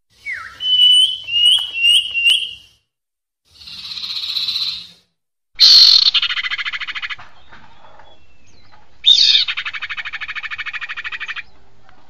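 Female common iora (sirpu) calls played as a bird-trapping lure: four short rising whistled notes, a hissing note, then two rapid rattling trills.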